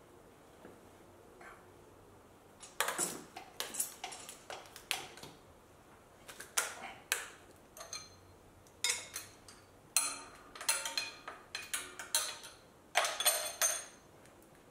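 Hand tools and loose metal parts clinking and clanking against a 2JZ engine's turbo and exhaust-manifold hardware as the twin-turbo setup is worked loose. The metal knocks come in short, irregular clusters of sharp, briefly ringing clinks, several seconds apart.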